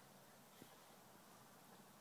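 Near silence: faint room hiss, with one faint short click a little after half a second in.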